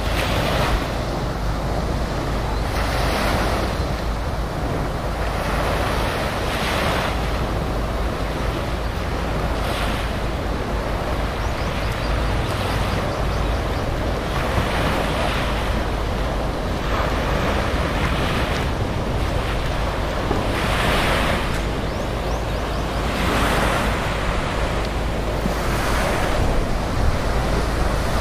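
Small sea waves washing onto the shore in swells every two to three seconds, over a steady low rumble of wind on the microphone.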